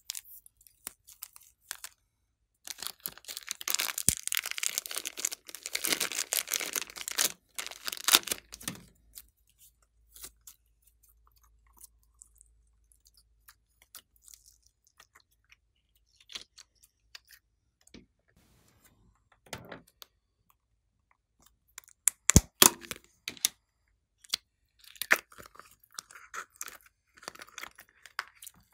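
Slime handled by hand, squeezed out of a piping bag and kneaded: sticky crackling, popping and squelching, dense for several seconds near the start, then sparser clicks and pops with a few short crackly runs later on.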